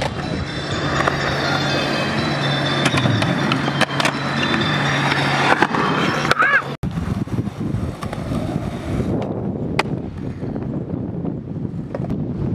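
Skateboard wheels rolling over asphalt, with several sharp clacks of the board in the first half. The sound cuts off abruptly about seven seconds in, and the rolling picks up again on a smoother court surface.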